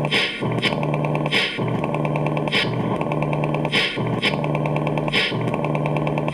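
Electronic background music with a steady beat: sharp snare-like hits, fast even ticking like a hi-hat, and a low bass note that pulses in time.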